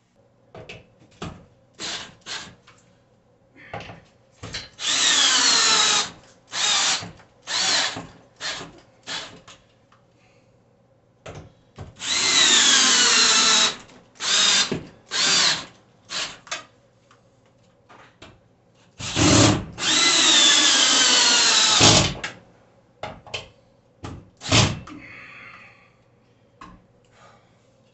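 Cordless drill with a half-inch socket driving the TV wall mount's lag bolts into the wall. It runs in three long pulls and many short bursts, and its motor pitch falls during each long pull as the bolt draws tight under load.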